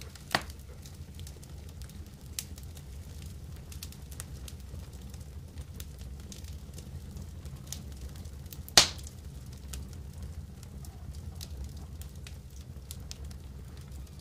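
Wood campfire crackling with many small scattered pops, and two much louder sharp cracks, one right at the start and one about nine seconds in.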